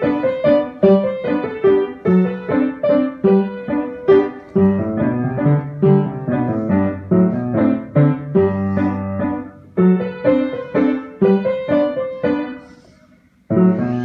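Piano playing a melody of struck notes over chords, with lower bass notes joining about four and a half seconds in. The playing fades and pauses briefly near the end, then starts again.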